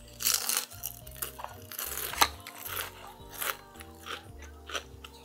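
Crisp crunching as thick-battered boneless fried chicken is bitten and chewed, a series of crunches about one or two a second, the loudest just after two seconds in, over light background music.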